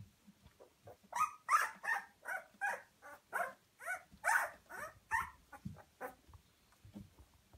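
Two-week-old puppy crying: a run of about a dozen short, high-pitched whimpering squeals, two or three a second, starting about a second in and dying away after about five seconds.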